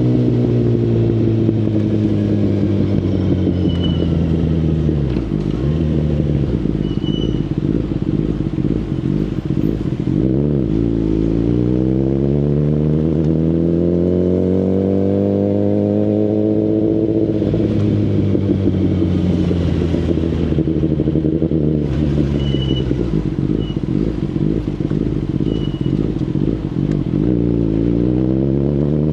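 A Kawasaki Ninja ZX-10RR's inline-four engine through an Akrapovic full exhaust system, riding. The engine note falls over the first few seconds, then climbs slowly twice through the middle. It falls away gradually and rises again near the end.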